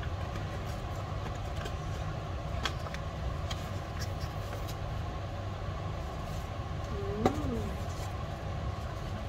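Paper leaflets and a cardboard box being handled, with faint scattered rustles and clicks over a steady low rumble. A brief voice sound comes about seven seconds in.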